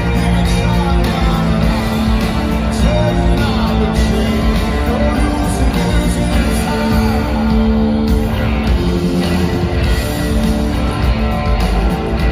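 Live rock band playing loud through an arena PA, with guitar and a sung vocal line over a steady bass, heard from within the crowd.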